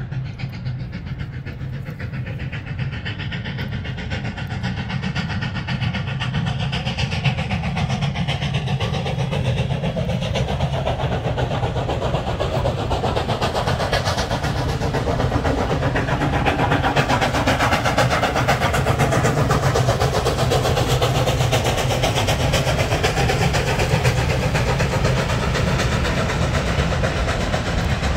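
Steam train running on the line, growing louder over the first half as it draws nearer, then holding steady.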